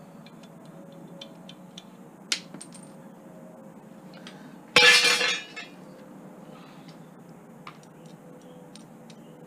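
Small metallic clicks and taps of a screwdriver working a chrome-plated kitchen tap, with a sharper click a little over two seconds in. About five seconds in comes a loud clatter of metal scrap lasting about half a second, the loudest sound here.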